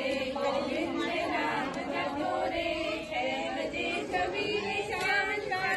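A group of women singing together, ragged and not quite in unison, mixed with overlapping chatter.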